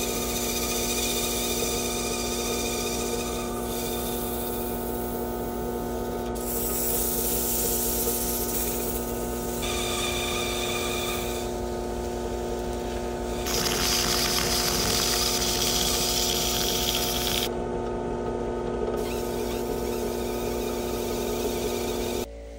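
Small electric power tool running with a steady motor hum, a grinding, hissing contact noise changing in character every few seconds. The sound drops off abruptly near the end.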